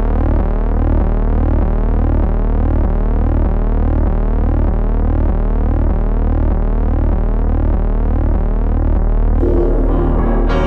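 Synthesized electronic drone: a loud, steady low hum pulsing about twice a second, with repeating sweeping tones layered over it. Near the end, music with piano notes comes in.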